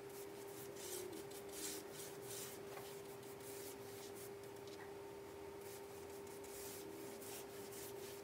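Paintbrush strokes spreading paint across wooden furniture: quick, irregular brushing swishes, over a steady low hum.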